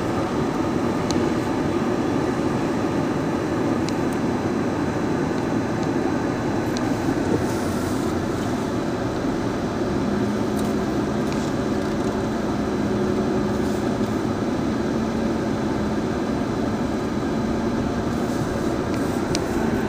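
Car driving: steady road and engine noise, with a low steady hum coming in about halfway through.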